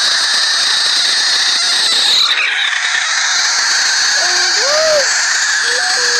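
A large frog giving its distress scream with its mouth held wide open after being poked. It is one long, loud, steady scream that lasts the whole time. A few short pitched sounds that rise and fall lie over it in the second half.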